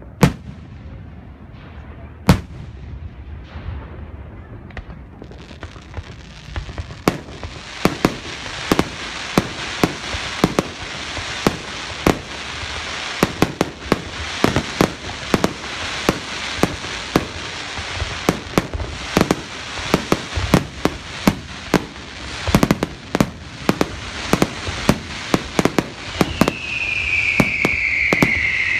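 Aerial fireworks display: a few scattered shell bursts at first, then from about seven seconds a rapid, dense string of bangs and crackling over a rising hiss. A high whistle falling in pitch comes in near the end.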